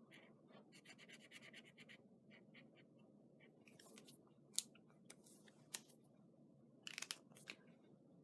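Faint scratching of a marker tip colouring in small squares on card stock, in quick back-and-forth strokes, with a few sharp clicks about halfway through and near the end.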